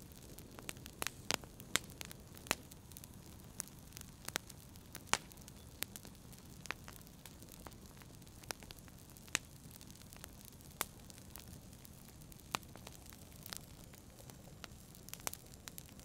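Wood fire crackling in a fireplace: irregular sharp pops and snaps, several a second at times, over a low steady background noise.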